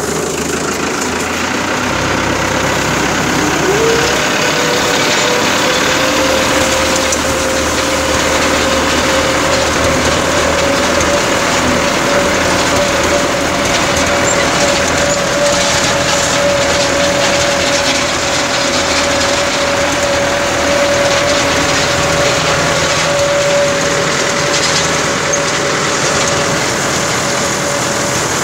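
Fiat tractor's diesel engine running, with a PTO-driven rotary hay rake working behind it. A whine climbs in pitch about three seconds in and then holds steady.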